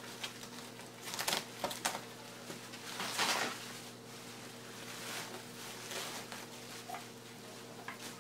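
Handling noises: scattered light clicks and rustles of packaging and plastic parts, with a longer rustle about three seconds in, over a steady low hum.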